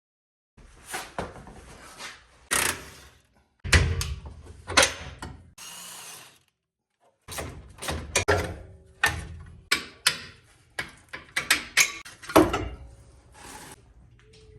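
Mechanic's tool work on Jeep suspension parts: a run of metal clanks and knocks mixed with short bursts of a power tool, broken twice by brief total silences where the clips are cut together.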